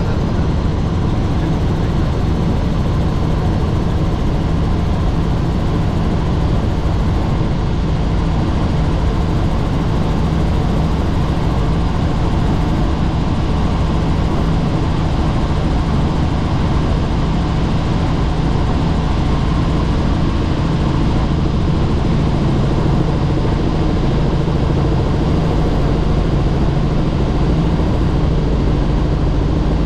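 Helicopter engine and rotor noise, a loud steady drone that does not change.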